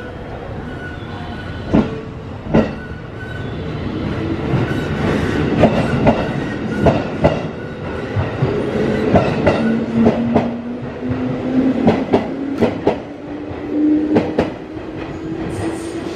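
JR West 221 series electric train pulling out of the station: a couple of sharp clanks as it starts, then its wheels clacking over the rail joints more and more often as it gathers speed. From about ten seconds in, a motor whine rises slowly in pitch as the train accelerates.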